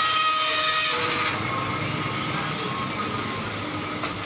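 Heavy coal haul truck engines running steadily, a continuous mechanical rumble with faint whining tones over it that fade out in the first second and a half.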